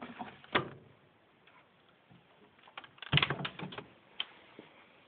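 Hoover Vision HD washing machine giving off irregular sharp clicks and knocks: a loud one about half a second in, then a clattering cluster about three seconds in, and a last single click near the end.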